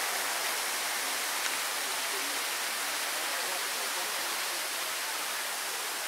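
Steady rush of the Bigăr waterfall: an even, unbroken hiss of falling water.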